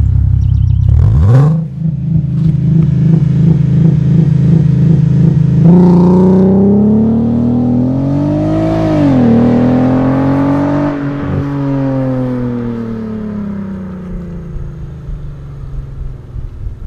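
Volkswagen Passat CC's VR6 engine through a sport exhaust with Barenwald mufflers. It revs up and holds steady, slightly stuttering revs for about four seconds as on launch control, then launches hard about six seconds in. The engine note climbs, dips once at a gear change, climbs again, then falls and fades as the car pulls away.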